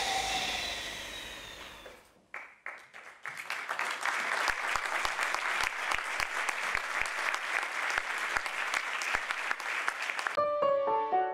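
Theatre audience applauding, a dense steady clapping that starts a couple of seconds in after a passage of music fades out. Near the end, piano notes come in.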